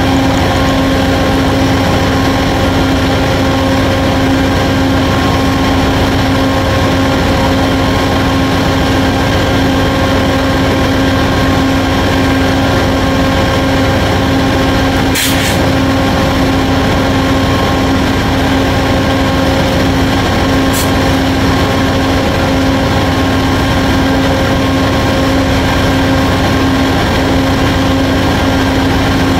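Two Amtrak GE Genesis P42 diesel locomotives idling at a standstill: a loud, steady drone on one constant pitch. A short sharp click comes about halfway through.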